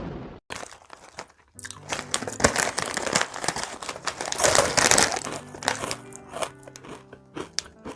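Plastic packaging crinkling and rustling, dense for a few seconds from about a second and a half in, then thinning to a few crackles over background music.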